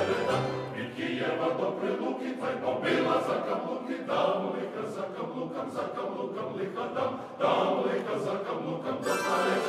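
Male choir singing in harmony, with a louder new phrase beginning about seven and a half seconds in.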